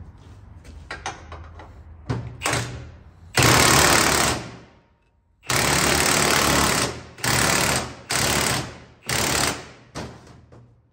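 Cordless impact wrench hammering in about seven bursts, two longer runs and then shorter blips, driving the 24 mm screw of a strut spring compressor down to compress a coil spring. Faint clicks and handling come before the first burst.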